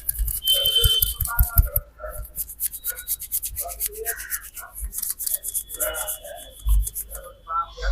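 Hands rubbing quickly over a person's hair and scalp during a head massage, a rapid run of short rustling strokes, with a few dull pats in the first two seconds.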